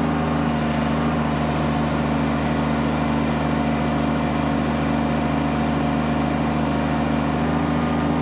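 Kubota BX compact tractor's three-cylinder diesel engine running steadily at high throttle, about 3,100 rpm, while the loader hydraulics lift a heavy pallet load.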